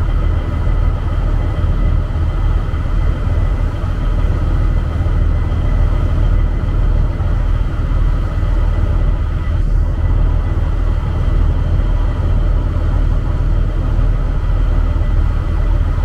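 Island ferry Mermaid II's engine running: a steady low rumble with a faint steady whine above it.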